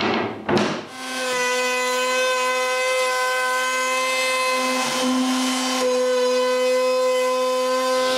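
A woodworking power tool starts about a second in and runs steadily with a whine.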